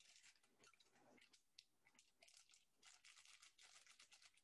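Near silence, with faint scattered crackles and ticks.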